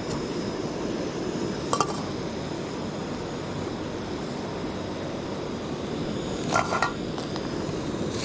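Metal clinks of a camping pot's lid and a ladle against the pot: one short ringing clink about two seconds in and two or three more near the end, over a steady rushing noise.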